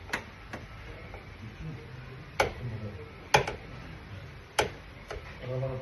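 A handful of sharp, irregular clicks and knocks, as of hand tools being handled in a car repair shop. The loudest come about two and a half, three and a half and four and a half seconds in, with low voices near the end.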